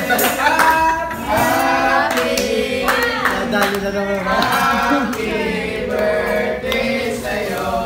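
A group singing a birthday song together, with rhythmic hand claps.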